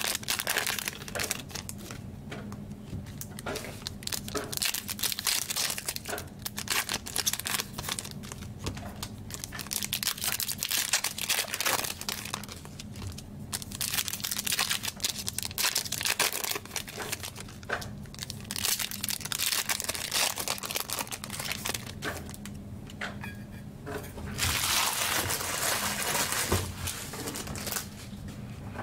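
Trading card pack wrappers being torn open and crinkled by hand, in a run of irregular crackles, with a longer, denser stretch of crinkling near the end.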